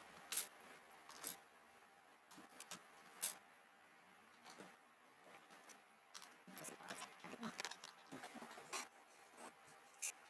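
Scattered sharp plastic clicks and light clatter from handling a Cherry mechanical keyboard, with a quick run of smaller clicks in the second half.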